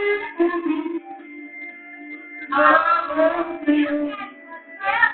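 A man singing through a handheld microphone over a karaoke backing track. The voice drops out for a moment about a second in while the backing music holds its notes, then comes back.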